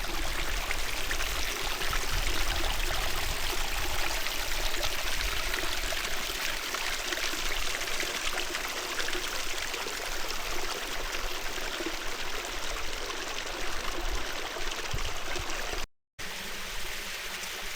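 Mountain stream running steadily, an even rushing water noise that cuts out briefly near the end.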